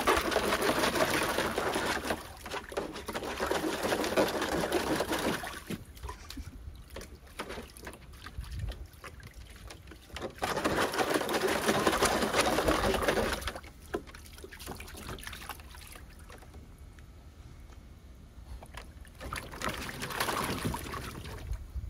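Jack Russell terrier digging at the water with its front paws in a shallow plastic kiddie pool, splashing it about. The splashing comes in three bouts: a long one at the start, another about halfway through, and a short one near the end, with quieter dripping and sloshing between.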